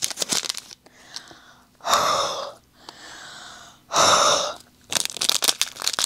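Two breaths blown hard into a small plastic bag of resin diamond painting drills, each after a softer inhale, to break the static that makes the drills cling to the bag. Near the end the drills rattle and click in the bag.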